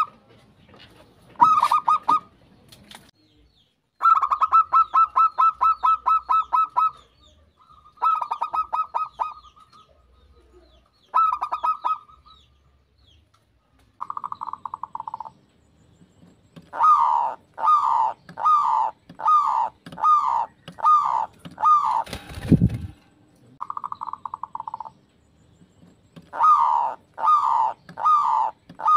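Zebra doves (perkutut) cooing. The calls are rolling, trilled coos at a fairly steady pitch, in bursts of one to three seconds. Past the middle they turn into a run of short repeated coos, about one and a half a second. A single thump comes a little after the middle.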